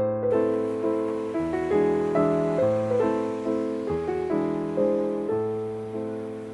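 Background piano music: a gentle melody of notes that ring and fade one after another, with no speech.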